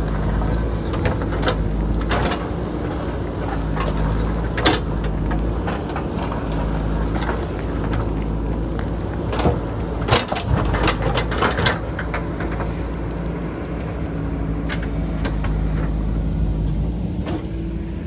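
A JCB backhoe loader's diesel engine runs steadily, with scattered sharp clanks and knocks and a quick run of them a little past the middle.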